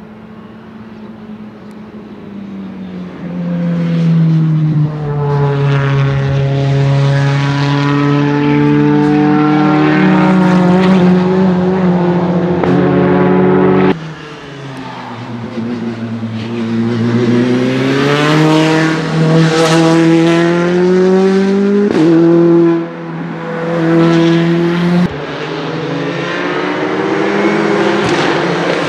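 Alfa Romeo Giulietta Veloce TCR race cars with turbocharged 1742 cc in-line four-cylinder engines passing at speed, one after another. Their engine note falls and rises with throttle and gear changes, and changes abruptly several times between passes.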